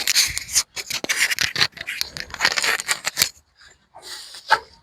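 Crackly rustling and scraping of something dry being handled, in quick strokes for about three seconds, then fainter, with a knock near the end.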